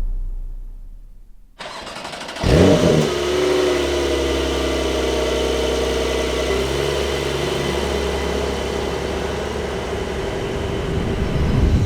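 Porsche 911 Carrera (992.2) twin-turbo flat-six starting: a short crank, then it catches with a quick rev flare that falls away. It settles into a steady idle, which steps down slightly a few seconds later.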